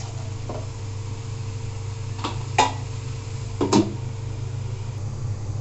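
Metal clanks of an aluminium lid and a small metal bowl being set on an aluminium karahi, the two loudest about a second apart, over a steady low hum.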